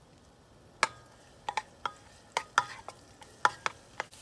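A wooden spatula knocking and scraping against a wok while stirring minced garlic in hot oil: about ten sharp taps with a short metallic ring, starting about a second in, over a faint sizzle.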